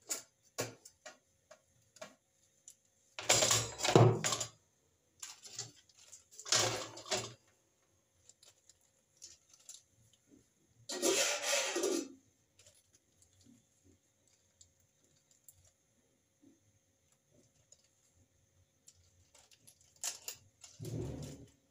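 Household objects being handled: scattered light clicks and knocks, with four longer scuffling sounds, about three, six and eleven seconds in and again near the end.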